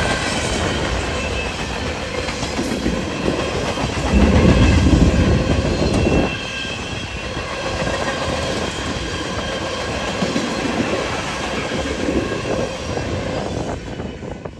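Freight train cars rolling past, wheels clacking on the rail with faint wheel squeal. It gets louder for about two seconds around four seconds in, then settles, and falls away near the end.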